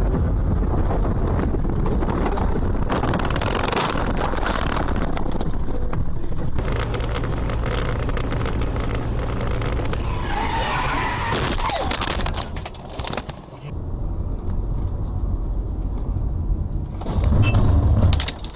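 Cars on the road heard from inside through dashcams: dense, steady road and engine noise, with stretches of skidding tyre noise, broken by cuts between clips. A loud burst comes near the end.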